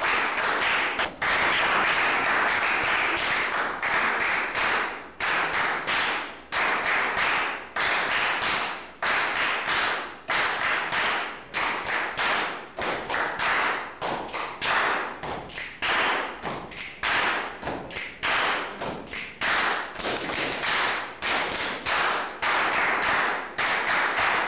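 A group doing body percussion: hand claps and slaps on the body and stamps, dense and continuous for the first few seconds, then falling into a rhythm of sharp strikes about twice a second.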